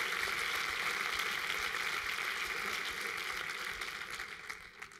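Audience applause: many hands clapping densely in a hall, dying away in the last second.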